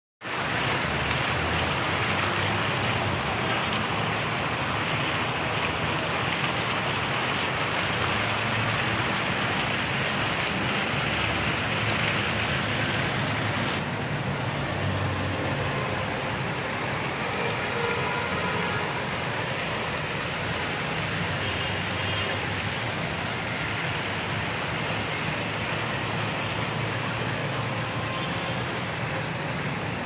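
Fountain water jets splashing steadily into their pool, an even rushing hiss that eases a little about halfway through.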